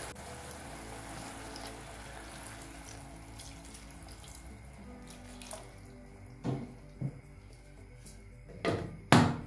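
Water poured from a jug into a hot pot of browned beef chunks, a steady splashing pour. Near the end come a few sharp knocks and one loud clatter as a glass lid is set on the metal pot.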